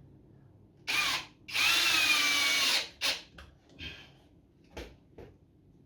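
Cordless power screwdriver driving Torx self-tapping screws into a plastic housing in three bursts: a short one, a longer run whose whine drops in pitch as the screw bites and tightens, then a brief final blip.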